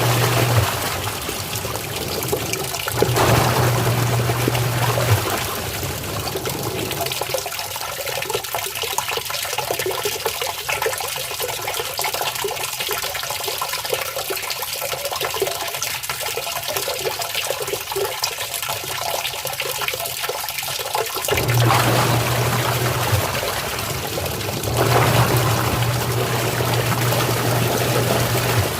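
LG washing machine at work, water splashing and rushing in its drum. A low electric hum from the machine switches on and off several times.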